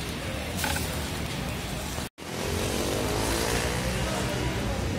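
Steady street noise with a motor vehicle engine rising in pitch, broken by a brief cut to silence about two seconds in.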